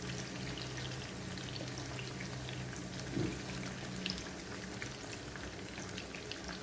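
Breaded chicken fillets sizzling and crackling steadily in hot cooking oil in a frying pan, freshly turned to fry the second side. A faint low steady hum runs underneath.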